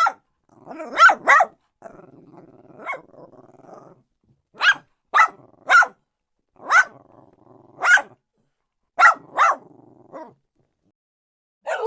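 Small dog barking: about a dozen sharp barks, some single and some in quick pairs, with a low growl in between.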